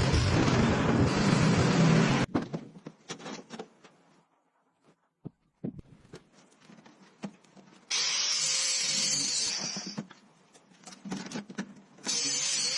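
A motor running steadily cuts off about two seconds in. Scattered clanks and taps of tools on metal follow, then two loud bursts of a power tool, the first lasting about two seconds and the second starting near the end.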